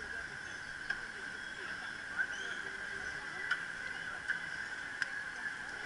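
Riding noise of a bicycle picked up by a bike-mounted action camera: a steady high hum over faint hiss, with a few sharp clicks and taps about a second apart.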